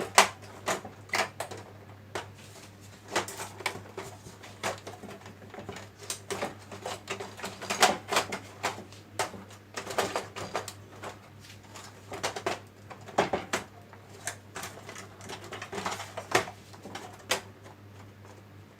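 Irregular clicks and light knocks of small hard parts and tools being handled, with a faint steady low hum beneath.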